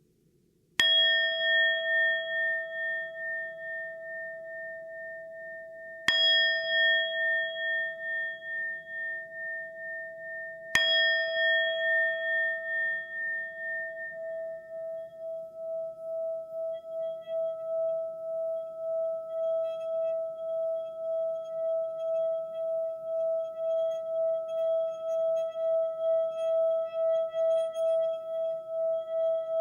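Singing bowl struck three times, about five seconds apart, each strike ringing on with a wavering, pulsing tone. After the third strike the tone does not die away but is held and slowly swells.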